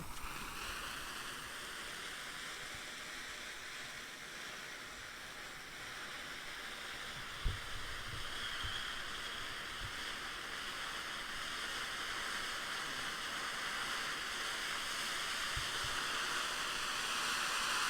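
MC Fireworks 'New World' 11-inch cone fountain burning, a steady rushing hiss of sparks that slowly grows louder as the fountain builds height. A single brief low thump about seven seconds in.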